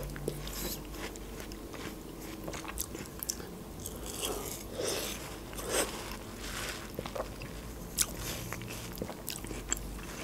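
Watermelon being chewed close to a clip-on microphone: wet crunching, smacking and small mouth clicks, with a few louder bites about four to six seconds in and again near eight seconds.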